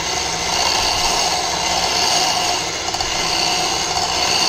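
Electric hand mixer running steadily, its beaters whisking egg whites in a stainless steel bowl until they are stiff.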